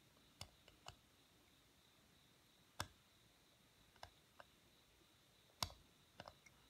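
Seal-carving knife cutting into a stone seal, chipping it: faint, sharp, irregular clicks, about ten in all, with two louder cracks about three seconds in and near the end.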